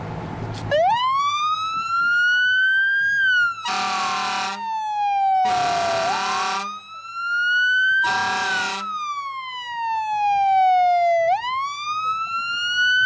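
Fire engine siren wailing, its pitch slowly rising and falling every few seconds, with three blasts of the truck's horn sounding over it in the middle.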